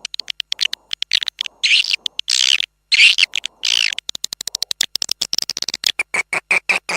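Swiftlet lure call for attracting swiftlets to a nesting house: fast trains of clicking chirps, with a few longer buzzy chirps in the middle and rapid clicking notes near the end.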